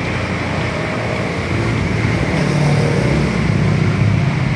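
Steady, loud rumble of the gas burner under a large aluminium pot of rice congee, growing a little louder about two seconds in.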